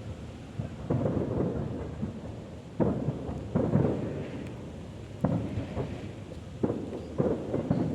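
Aerial firework shells bursting in quick succession: about seven sharp booms at uneven gaps of roughly half a second to two seconds, each trailing off in a low rumble.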